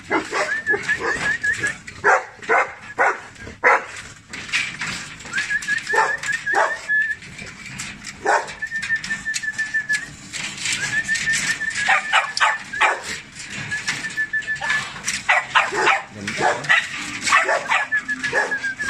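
Large mixed-breed dogs barking repeatedly in short, sharp barks. Between and over the barks, runs of a high, thin call pulse quickly at one pitch.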